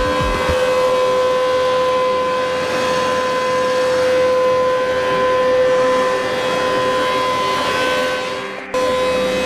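V-HOLD VH-MB2063D double-side planer running with a steady whine from its spiral cutterheads as a board feeds through and is planed top and bottom. The sound sags and breaks off abruptly near the end, then picks up again unchanged.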